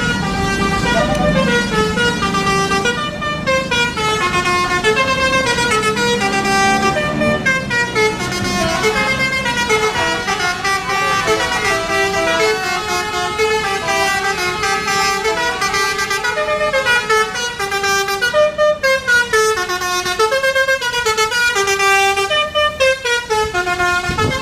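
Telolet bus horn, a multi-trumpet air horn, playing a long, fast melody of stepped notes that rise and fall without a break.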